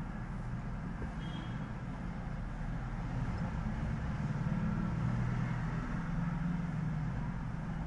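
Steady low background rumble, growing a little louder around the middle and easing off again.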